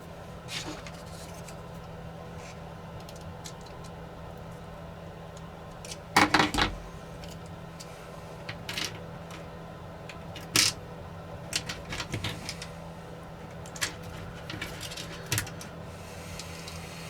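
Small tools and plastic drone parts clicking and tapping on a workbench during disassembly of a DJI Mini 4 Pro, scattered sharp taps with the loudest cluster about six seconds in, over a steady low hum.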